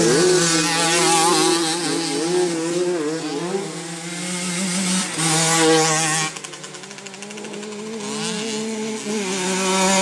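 50cc motocross bike engines racing, their pitch revving up and down as the riders go round the track. One bike passes close near the end, the loudest moment.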